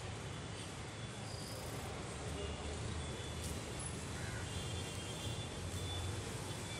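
Street ambience: a steady low rumble of distant traffic, with a few faint short high tones over it.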